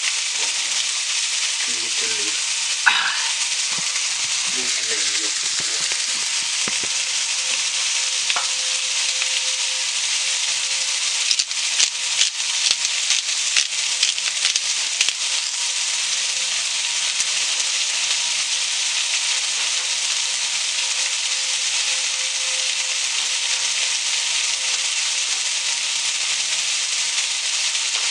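Food sizzling steadily in a frying pan, with a spell of sharper crackles and pops around the middle.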